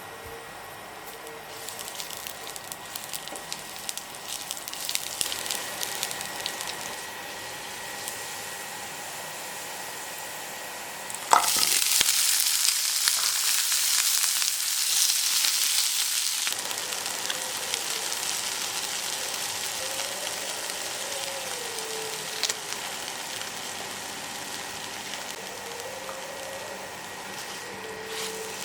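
Food frying in hot oil, crackling and sizzling. About eleven seconds in, the sizzle jumps suddenly much louder for around five seconds, as when something is added to the hot pan, then settles back to a steady, softer sizzle.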